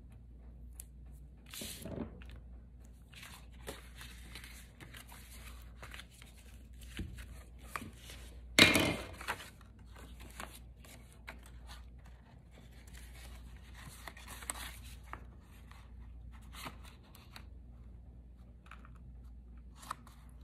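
Hands working double-sided tape and cardstock: faint rustles, clicks and tearing sounds, with one louder tearing rasp about eight and a half seconds in.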